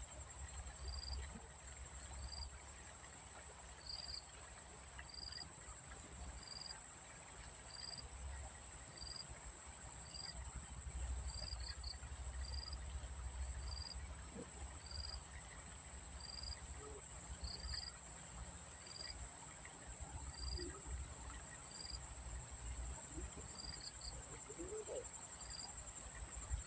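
Insects, crickets or cicadas, keep up a steady high-pitched drone, while a short chirp repeats evenly about every two-thirds of a second. A low rumble sits underneath.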